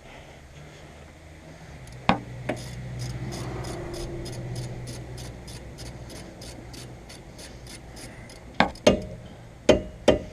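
Hand work on a car's brake caliper: rubbing and scraping of metal parts, with a few sharp metal knocks about two seconds in and again near the end. A faint steady hum and a light regular ticking, about four a second, run underneath.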